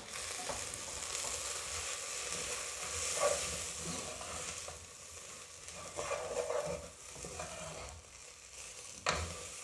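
Wooden spoon stirring chilli, turmeric and coriander powders into shallots and onions frying in coconut oil in a pressure-cooker pot: a soft, steady sizzle with uneven scrapes of the spoon. This is the stage where the ground spices are roasted in the oil.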